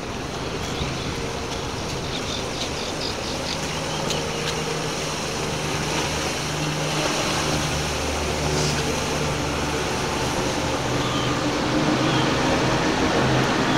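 Motorboat engine droning steadily as a cabin fishing boat runs past through choppy water, over wind and water noise; the hum builds from a few seconds in.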